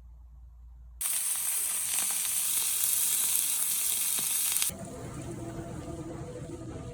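Food sizzling loudly in hot oil in a frying pan, starting abruptly about a second in and cutting off sharply near five seconds, after which soft background music continues.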